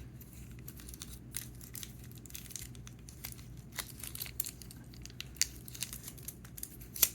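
Plastic packaging crinkling and crackling with many small irregular clicks as it is handled.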